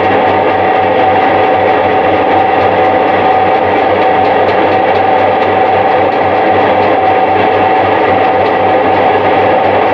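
Electric meatball-forming machine running steadily as it extrudes meatballs: a loud, even motor hum with a steady high whine held over it.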